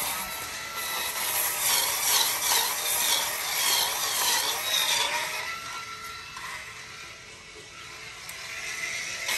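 Tilswall M1 cordless spin scrubber running, its rotating brush head scrubbing wet ceramic tile in repeated back-and-forth strokes over a thin motor whine. The scrubbing goes quieter for a few seconds past the middle, then builds again near the end.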